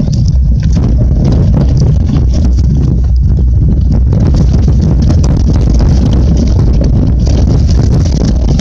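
Mountain bike rolling fast down a rough dirt trail. There is a loud, continuous low rumble with a dense clatter of small knocks as the bike and the handlebar-mounted camera shake over the bumps.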